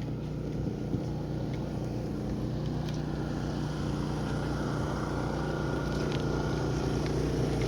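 Steady low mechanical drone from an engine or motor running at constant speed, with wind noise over it.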